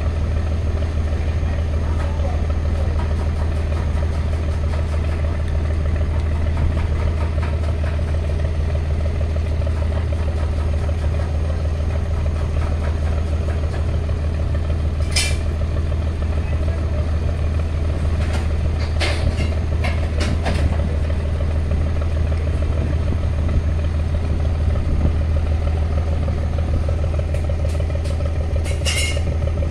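A boat's engine running steadily with a constant low hum, with a few short sharp sounds about halfway through and again near the end.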